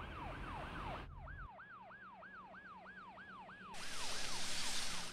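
Police car siren yelping, sweeping up and down over and over about three times a second. A low rumble lies under it for the first second and a half, and a loud rushing noise joins it for about the last second.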